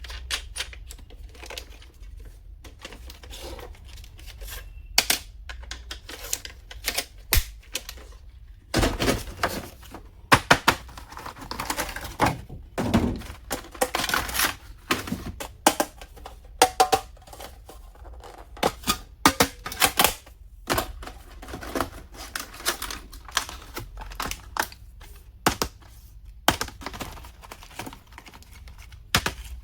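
Plastic stationery being handled and unpacked: irregular clicks, taps and light knocks, with a stretch of packaging rustling from about 9 to 15 seconds in.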